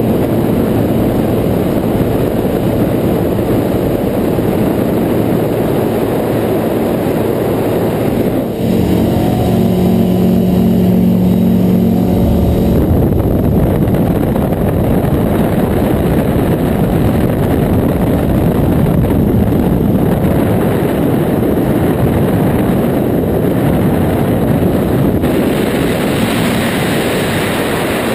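Ultralight aircraft in flight: a steady engine drone under heavy wind rush on the microphone. For a few seconds, about nine seconds in, the engine's even hum comes through clearly above the wind, and near the end the rushing hiss grows brighter.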